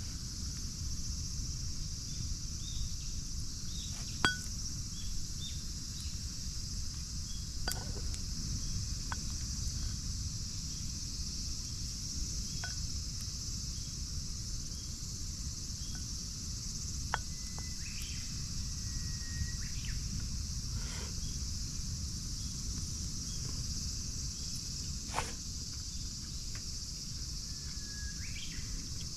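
Steady high insect chirring, with a low rumble underneath and a few scattered sharp clicks.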